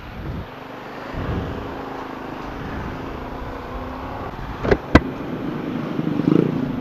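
Honda scooter's engine running as it pulls away and gathers speed, with road and wind noise on the microphone slowly growing louder. Two sharp knocks just before five seconds in.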